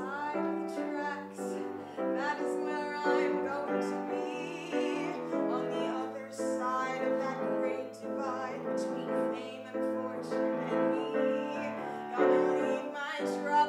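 A woman singing a musical-theatre song with vibrato, accompanied by a piano.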